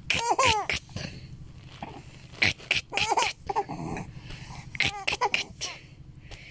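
Young baby cooing and squealing in a few short, high-pitched vocal bursts, with quick breathy huffs between them.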